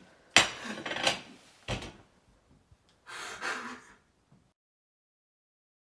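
Kitchen handling noises: a loud knock with clatter, a second sharp knock, then a short rush of noise, before the sound cuts to dead silence.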